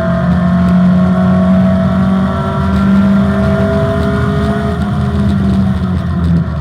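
Opel Manta rally car's engine running hard at high revs, its pitch climbing gently as it pulls through a gear.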